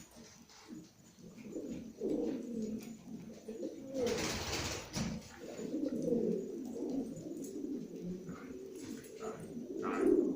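Domestic pigeons, yellow Makabi, cooing continuously in low, rolling tones, with a brief burst of noise about four seconds in.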